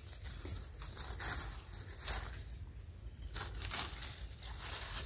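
Faint, irregular crackling and rustling of sticks and leaf litter being handled while a brake-cable snare is set with wooden stakes.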